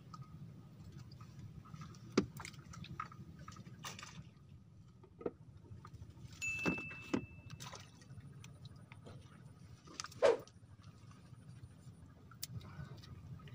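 Fishing rods and reels being handled on a bamboo raft: scattered clicks and knocks, the sharpest about two seconds in and about ten seconds in. A low, steady rumble runs under them.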